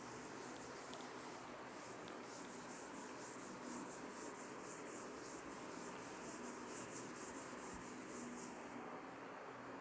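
Cloth duster being wiped across a chalkboard, a faint rubbing hiss in quick repeated strokes that stop about a second before the end.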